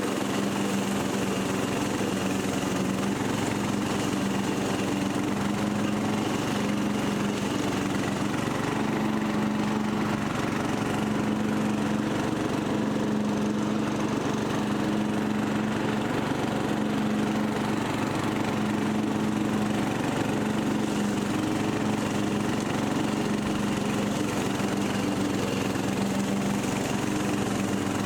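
Freshly rebuilt Briggs & Stratton 17.5 HP lawn mower engine running steadily at an even speed, after carburetor changes were made to get it to run.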